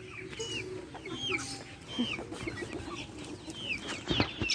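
Chickens peeping in a cage: a run of short, high chirps that fall in pitch, about two a second, with a few low clucks among them. A few sharp clicking knocks come near the end.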